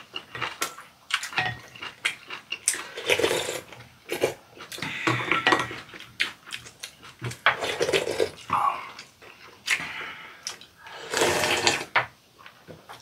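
Close-up eating sounds: chewing and slurping of soup, with chopsticks and spoons clicking against the bowls. Near the end comes a long slurp as soup is drunk straight from the bowl.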